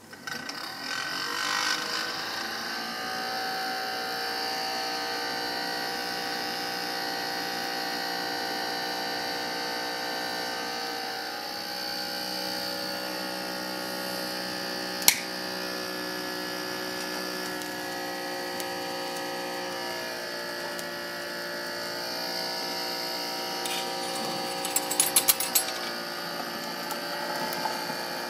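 Small electric chimney fan set on a gauge 1 live-steam locomotive, running with a steady whine to draw draught through the coal fire while steam is being raised. A sharp click about halfway through and a quick run of metallic clinks near the end come from the coal scoop at the firebox.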